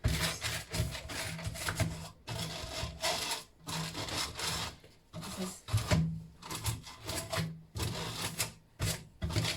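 Rubber brush scrubbing lint off a tumble dryer in repeated rasping strokes, each about a second long with short pauses between.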